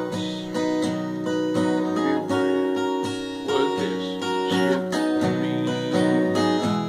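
Acoustic guitar strumming chords in a steady rhythm, in a country gospel style.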